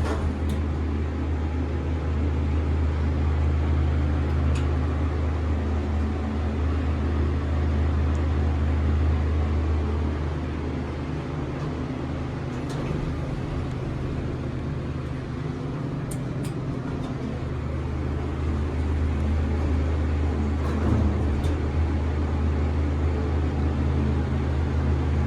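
Elevator cab ventilation fan running with a steady, loud low hum, easing off a little midway, with a few faint clicks.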